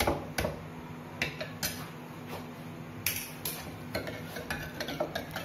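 Steel ladle stirring strained raw-mango pulp in a ceramic pot, with irregular clinks and scrapes of metal against the pot.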